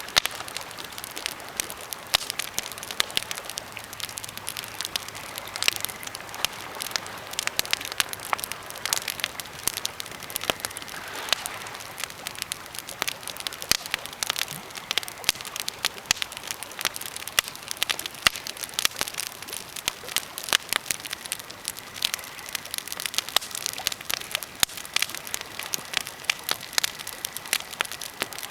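Birch and pine campfire crackling: dense, irregular sharp pops and snaps over a steady hiss.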